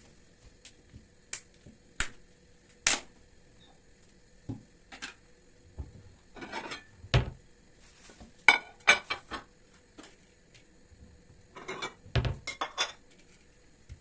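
Kitchen clatter: dishes and utensils clinking and knocking in separate strokes, with a cluster of quick clinks near the middle and a couple of heavier dull thumps, plus brief rustling in between.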